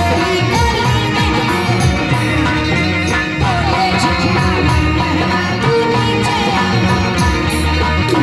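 Loud Indian film-style music with a heavy bass and a steady beat, played over a sound system.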